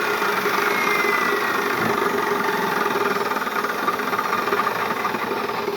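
Makita chop saw running with a steady motor drone and a high whine that falls slowly in pitch over the first couple of seconds.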